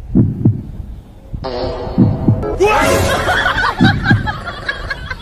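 A small dog's heartbeat picked up and amplified by a karaoke microphone pressed against its body: deep thumps in pairs, three times, each pair about two seconds apart. Music plays along from about a second and a half in.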